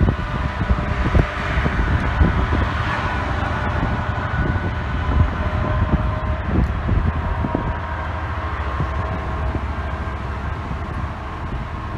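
Two Class 66 diesel-electric locomotives working in multiple, their two-stroke EMD V12 engines giving a steady low rumble with a whine on top as they pass overhead on a bridge. Wind buffets the microphone.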